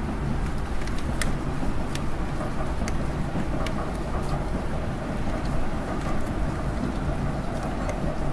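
Steady low rumble of city traffic, with irregular sharp ticks of raindrops striking close by.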